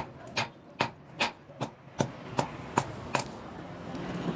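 Hand hammer striking a red-hot steel sickle blade on an anvil block: nine sharp, evenly paced blows, about two and a half a second, stopping a little past three seconds in.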